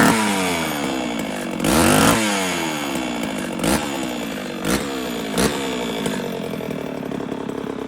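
Vintage Pioneer 1200A two-stroke chainsaw running after decades unused. Its throttle is blipped about four times, each sharp rev-up falling back to a lower idle. The blips come about 2, 3.7, 4.7 and 5.4 seconds in.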